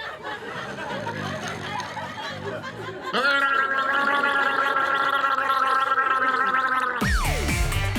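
A person snoring loudly: a low rattling breath, then a long drawn-out, pitched snore starting about three seconds in. Near the end a quick falling glide leads into music with drums.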